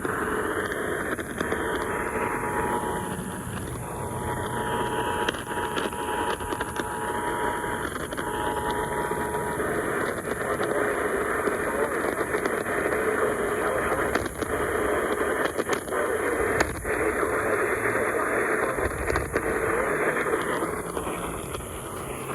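Steady hissing static from an AM radio receiver. From about a second in until about nine and a half seconds, the Emergency Alert System's two-tone attention signal is heard faintly under the static, then cuts off.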